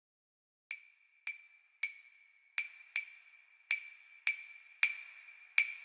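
Nine sharp, high-pitched percussive clicks, each with a brief ringing tone, at an uneven pace of about one or two a second, opening the soundtrack like a wood block.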